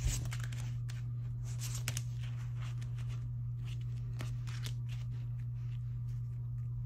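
Clear plastic zip-pocket cash envelopes with paper bills inside being shuffled and set down on a desk: irregular light rustling and crinkling with soft taps, over a steady low hum.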